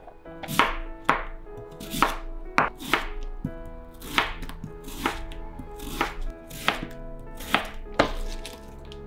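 Ceramic kitchen knife slicing raw daikon radish into sticks on a wooden cutting board: about a dozen crisp cuts, each ending in a knock of the blade on the board, at an unhurried, uneven pace.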